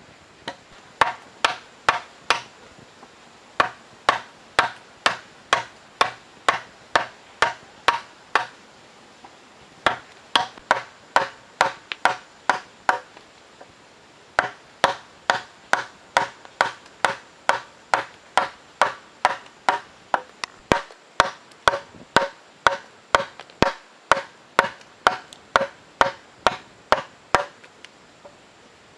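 Wide wood chisel being struck over and over to chop into the end of a timber beam, about two sharp blows a second with a few short breaks.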